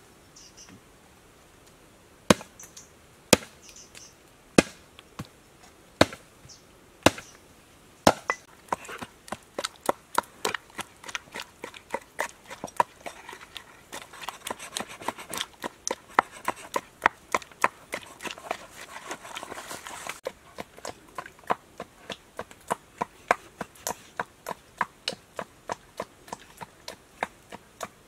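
A cleaver chopping a raw pig leg on a wooden board, with sharp single strikes about a second apart. From about eight seconds in, a wooden pestle pounds chillies in a clay mortar, with quicker, lighter taps several a second and more knife chops among them.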